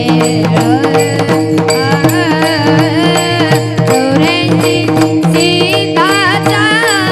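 Marathi Warkari bhajan: a boy's voice sings a long, wordless ornamented passage, beginning about two seconds in, over a steady sustained drone and regular hand-drum strokes.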